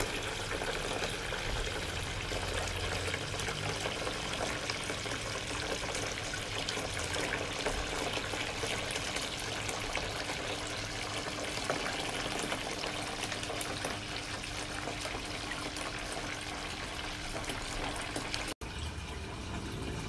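Steady sound of running, falling water, with a momentary dropout near the end.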